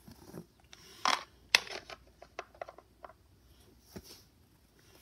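Small plastic toy figures clicking and tapping against a plastic toy plane playset as they are set into its seats: two sharp clicks a little after a second in, then a few fainter taps.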